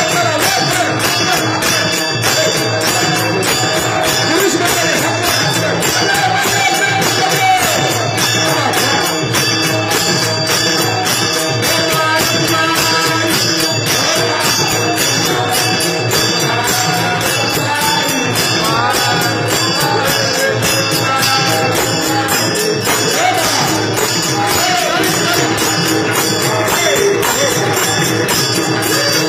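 Indian devotional music with fast, steady jingling percussion like a tambourine, drumming and singing voices, running without a break at an even loudness.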